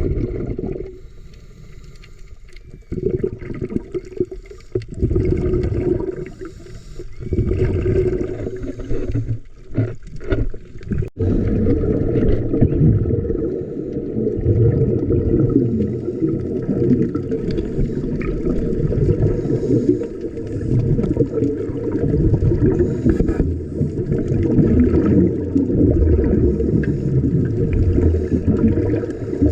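Muffled underwater sound of scuba diving: a dense bubbling rumble from divers' regulators and exhaled bubbles, broken up with short gaps for the first ten seconds or so, then steady.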